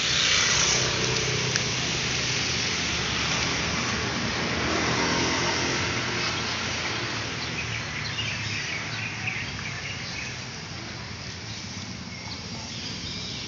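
Street ambience: steady traffic noise from passing cars, with a few faint high chirps in the middle.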